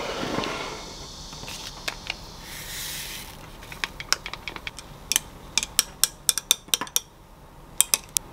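A tall glass of water with kombucha powder being stirred: a quick run of sharp clinks against the glass, after a soft scrape at the start and a short hiss about two and a half seconds in.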